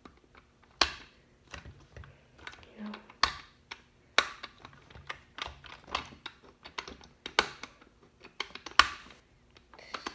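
Irregular sharp plastic clicks and taps, a dozen or so, the loudest near the end, from a plastic LOL Surprise doll capsule being turned and worked in the hands while trying to open its password lock.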